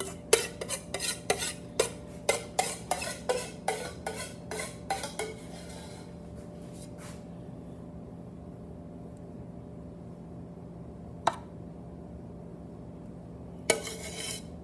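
A utensil scraping and tapping against a loaf pan while spreading red sauce over a meatloaf: a quick run of strokes, about two or three a second, for the first five seconds, then a single click and a short burst of scraping near the end, over a steady low hum.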